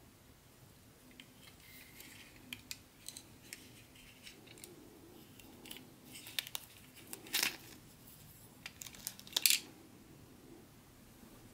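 Thin clear plastic wrapping crinkling as it is pulled off a small plastic model missile, with light clicks of the plastic parts being handled. The two loudest crinkles come about seven and nine and a half seconds in.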